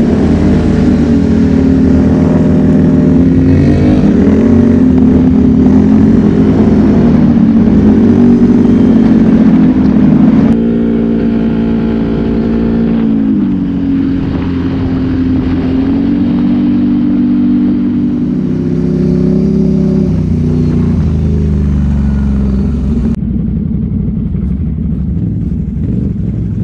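ATV engine running under way, its pitch rising and falling with the throttle. It drops a little quieter about ten seconds in and eases off near the end.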